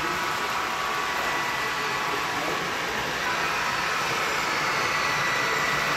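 Model train running on a layout: a steady whir of the locomotive's motor and wheels on the rails.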